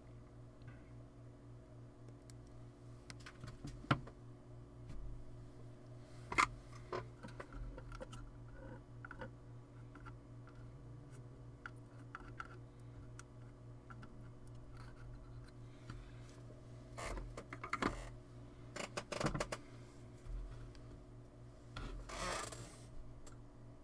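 Scattered small clicks, taps and scrapes of hands and a soldering iron working on a UPS circuit board, busier in the second half, with a rustling scrape about a second long near the end. A steady low electrical hum runs underneath.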